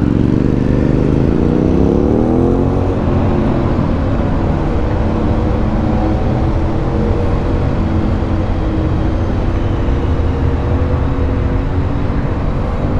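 Suzuki V-Strom 650's V-twin engine revving up as the motorcycle accelerates over the first couple of seconds, then running at a steady, lower pitch.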